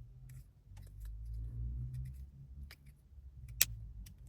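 Titanium magnetic fidget slider with Teflon plates being slid back and forth in the hand: a low rubbing rumble broken by muted thunks and light clicks as the magnets snap the slide into place, the sharpest click about three and a half seconds in.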